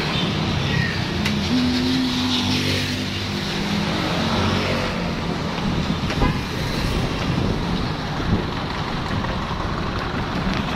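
Street traffic: motor vehicle engines running on a city road, with a steady engine hum about two seconds in and a brief knock just past the middle.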